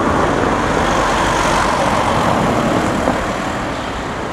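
Steady road traffic noise as cars drive past close by on a town street, with tyres and engines making an even wash of sound.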